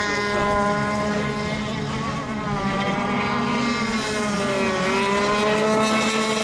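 Several radio-controlled racing boat engines running at once in overlapping high pitches, with one dropping in pitch a little before five seconds in and climbing back.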